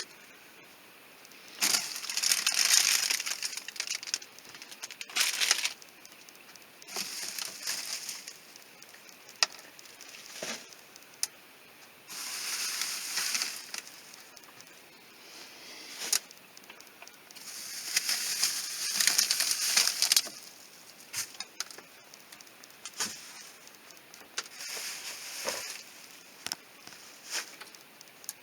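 Food packages and containers being handled while an RV fridge is emptied and repacked: repeated rustling lasting a second or two at a time, with sharp clicks and knocks of items being set down between them.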